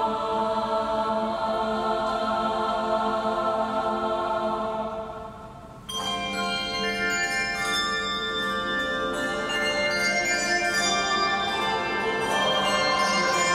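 Choir singing a held chord that fades away about five seconds in; then, about six seconds in, the handbells and hand chimes strike together and ring on through a series of struck notes.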